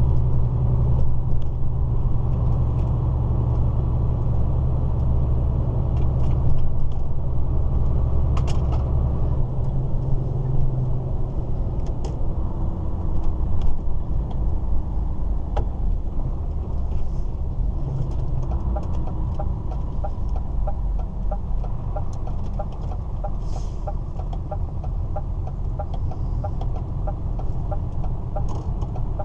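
DAF lorry's diesel engine running as the truck drives along, with tyre and road noise, heard from the cab; the low engine note drops about ten seconds in as the truck eases off. A light regular ticking runs through the second half.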